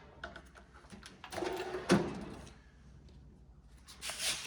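Tool chest drawer sliding on its runners, with a few light clicks. A longer slide starts about a second in and ends in a knock, and a shorter slide comes near the end.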